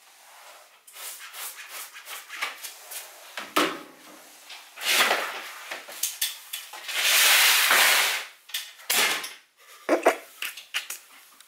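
Floor cleaning with a flat spray mop on laminate: a string of knocks, clicks and clatter as the mop and things by the door are handled, with a longer hiss about seven seconds in.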